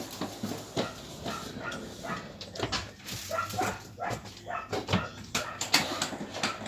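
A dog whimpering and yipping in many short, irregular sounds.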